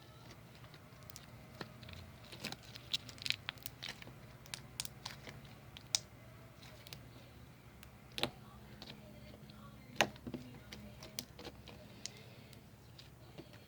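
Slime with foil mixed in being handled: irregular small crackles, clicks and pops, a few sharper ones standing out, over a faint steady hum.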